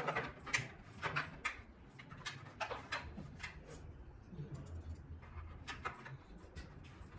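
Small metallic clicks and light taps of a hex key and screws against a bike trainer's housing as the screws are fitted and driven in. They come in irregular clusters, with the busiest at the start, about a second in, near three seconds and near six seconds.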